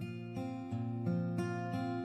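Background music played on acoustic guitar, with plucked chords that change every fraction of a second.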